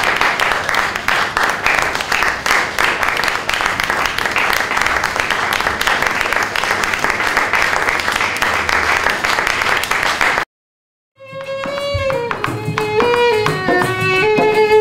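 Audience applauding and clapping for about ten seconds, then cut off abruptly. After a brief silence, plucked-string music with a melody begins.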